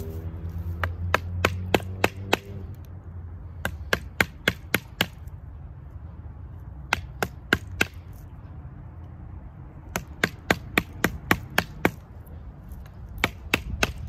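A knife being batoned through a forked branch resting on a log: a wooden baton knocking on the knife's spine in quick runs of sharp strikes, several a second, with short pauses between the runs.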